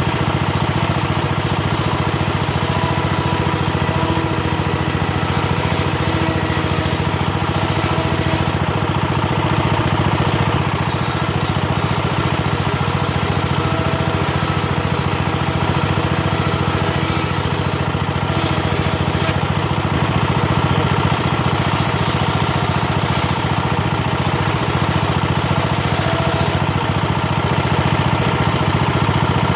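Homemade engine-driven circular saw bench running steadily while ripping teak boards. The engine hum stays constant, and a high hiss from the blade cutting through the wood comes and goes in several passes of a few seconds each.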